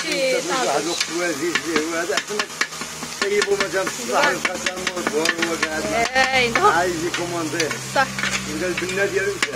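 Metal blade tapping and scraping on a hot griddle as minced meat is chopped and stirred, with sizzling frying underneath and many quick sharp clicks. A wavering pitched sound comes and goes over it.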